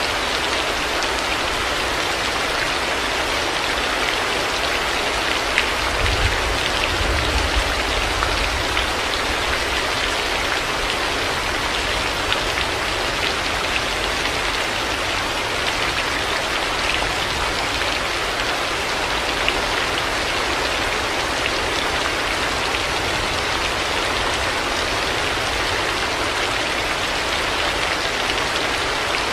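Heavy rain falling steadily, with scattered drops ticking on a surface. A brief low rumble of distant thunder comes about six seconds in.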